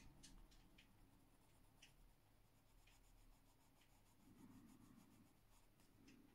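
Faint scratching of a Caran d'Ache Pablo coloured pencil shading on paper in short, irregular strokes.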